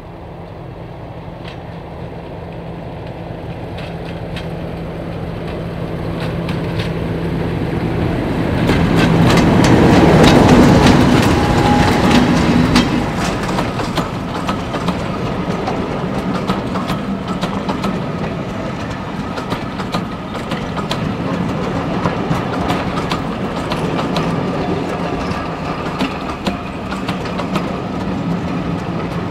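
An English Electric Class 50 diesel-electric locomotive and its train passing: the engine's steady note grows louder as it approaches, is loudest about ten seconds in as the locomotive goes by, then the coaches run past with a steady clickety-clack over the rail joints.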